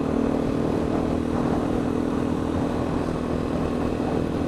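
KTM dirt bike engine running at a steady cruising speed, its note holding even, with wind rushing over the helmet-mounted microphone.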